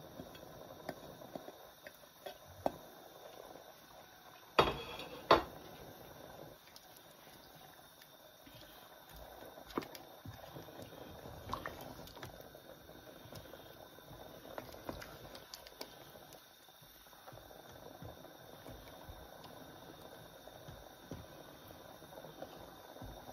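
Beef and pumpkin curry simmering in a stainless steel pot, a faint steady bubbling with small pops. Two sharp knocks about five seconds in.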